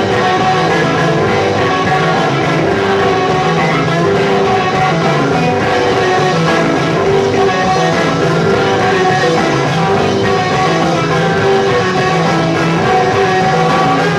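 Live rock played by a guitar, bass and drums trio, loud and continuous, with repeating guitar figures over the bass and drums.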